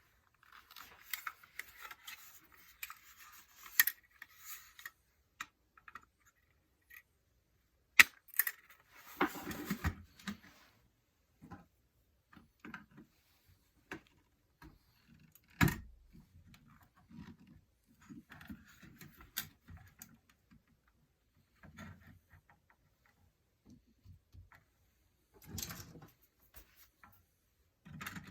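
Parts of a fire alarm being handled and taken apart by hand: irregular clinking, rattling and small knocks, with sharp snaps about eight and sixteen seconds in.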